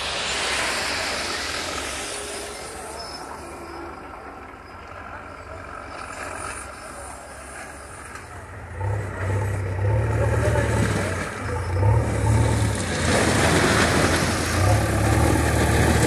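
JCB backhoe loader's diesel engine running close by, coming in loud about nine seconds in and rising and falling as it works; before that, lower general outdoor noise.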